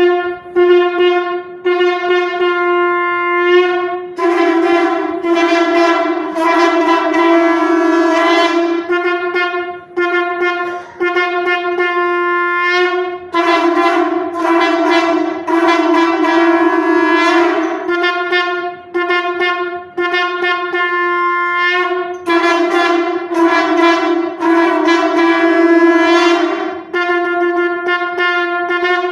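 Several conch shells (shankh) blown together in long, loud blasts on one steady note, each lasting about four to five seconds, with short breaks for breath between them.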